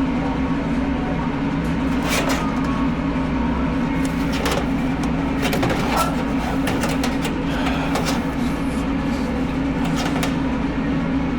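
A steady low machine hum with scattered clicks and knocks.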